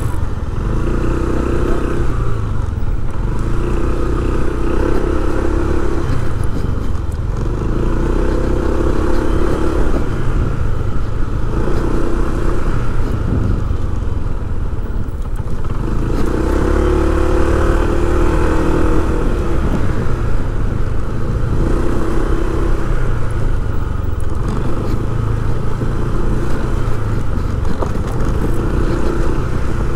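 A motorcycle engine running at low road speed, with a steady low rumble and a higher engine note that swells and eases every second or two.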